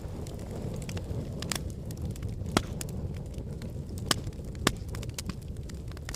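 Fireplace fire crackling: a steady low rumble of flames with frequent sharp snaps and pops, the loudest pop about two and a half seconds in and two more near four and four and a half seconds.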